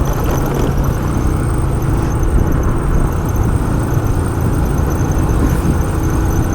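Motorcycle riding at road speed: a steady rush of wind on the microphone over the engine running underneath.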